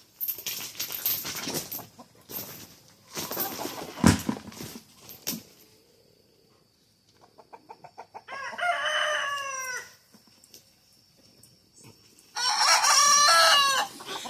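Roosters crowing back and forth: two loud crows, one near the middle and a louder one near the end. Rougher chicken clucking and squawking comes before them.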